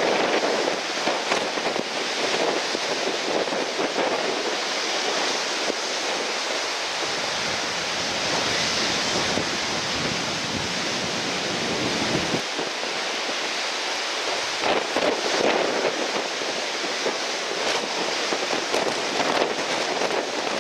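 Strong wind rushing over the microphone together with the steady wash of breaking surf.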